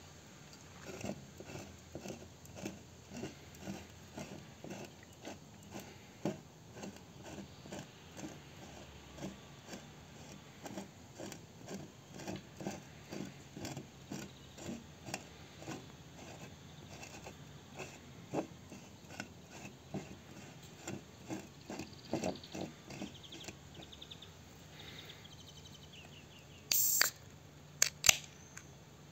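Fingers tapping the side of a shaken aluminium soda can, light taps about two a second, to knock the gas bubbles off its walls before opening. Near the end the ring-pull cracks open with a short hiss, followed by a couple of sharp clicks from the tab.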